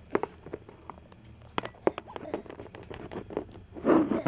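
Irregular light clicks and taps from small plastic toy figures being handled and moved on a surface, with a louder scuffle near the end.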